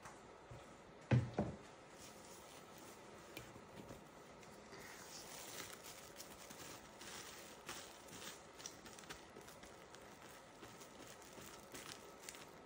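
A double thump about a second in, then faint crinkling and rustling of plastic wrap being peeled off a steel mixing bowl.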